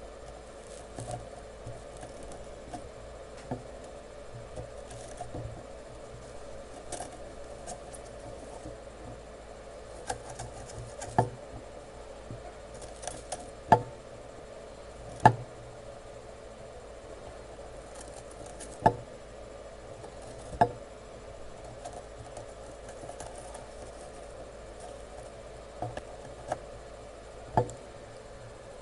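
Irregular sharp clicks and taps of small tools handled on an electronics workbench, about a dozen of them with the loudest bunched in the middle, over a steady hum.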